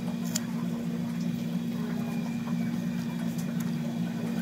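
A steady low hum, with a few faint clicks and crinkles as adhesive tape is pressed and handled by gloved fingers.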